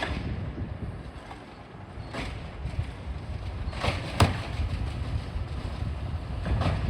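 Yard waste collection truck's engine running with a low rumble, broken by several sharp knocks; the loudest comes a little past the middle.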